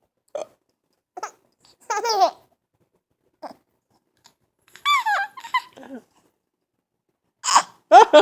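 A string of hiccups: short, sharp squeaky hics, irregularly spaced about a second apart, some with a brief falling voiced squeak. The last two, near the end, are the loudest.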